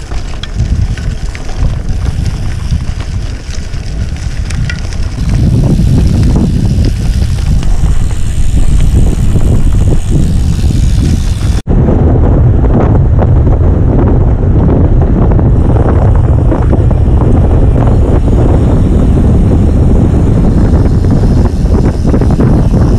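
Heavy wind rumble on the microphone of a camera riding on a moving road bike, with tyre noise from the gravel tyres on a dirt track. It gets louder about five seconds in, and after a sudden cut about halfway through the same wind noise carries on while riding on asphalt.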